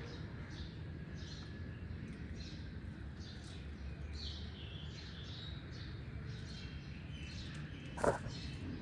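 Small birds chirping, short high chirps repeated a few times a second over a low steady rumble, with one brief louder sound near the end.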